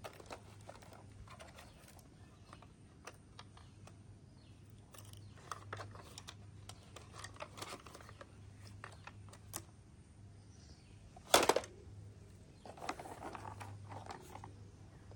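Plastic toy vehicles being handled: scattered light clicks and rustles of plastic, with one louder knock a little past the middle.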